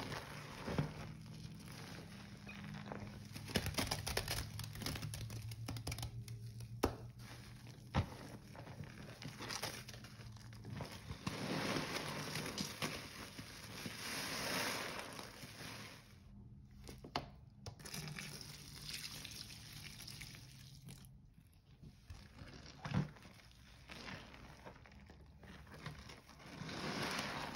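Soapy sponges squeezed and kneaded by gloved hands in a basin of thick suds, with wet squelching in irregular swells and a few sharp clicks.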